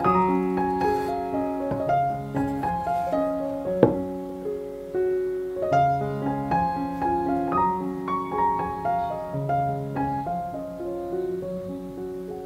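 Solo piano background music, with a single light knock about four seconds in.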